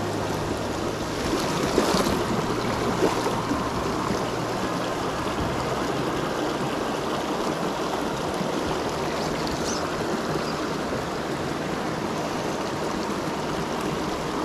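Mountain stream running over rocks, a steady rush of water, with a couple of light knocks about two and three seconds in.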